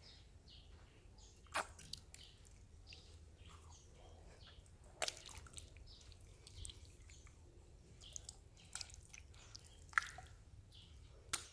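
Faint wet squelches of a hand pressing into and tearing apart a soft block of red jelly, with a few sharper wet smacks scattered through.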